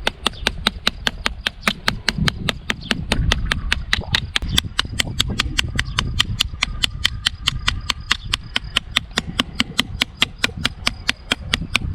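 Tip of a Victorinox Hunter Pro pocketknife stabbed rapidly and repeatedly into a hard target, about five sharp, even impacts a second, in a tip destruction test that breaks the tip off.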